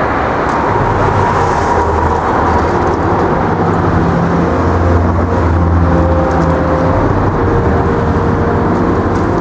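Road traffic: a steady rumble of car engines and tyre noise close by, with no single event standing out.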